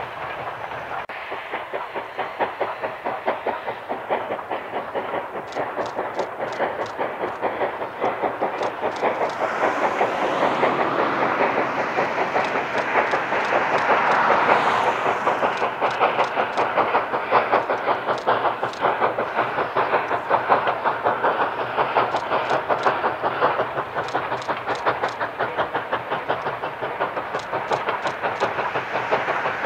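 East Broad Top No. 16, a narrow-gauge 2-8-2 steam locomotive, chuffing in a fast, even exhaust beat as it hauls passenger coaches, with wheels clicking over the rail joints. The sound grows louder through the first half as the train draws closer.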